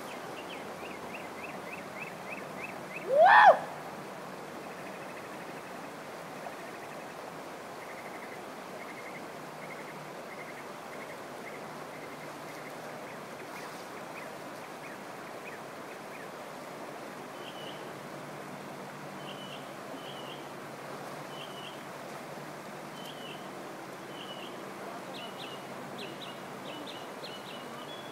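Steady rush of water, with birds chirping in short repeated calls through the second half. About three seconds in there is one loud, short cry that rises in pitch.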